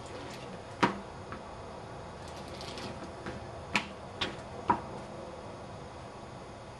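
A handful of short, sharp clicks and taps spread over a few seconds, with a faint scratchy stretch in between: a rotary quilting cutter and foam-backed rubber stamp pieces being handled and set down on a cutting mat, over a steady background hiss.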